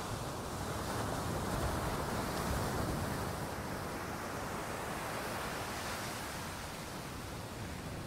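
Sea surf washing on the shore: a steady rushing wash of waves that swells a little a second or two in and eases off near the end.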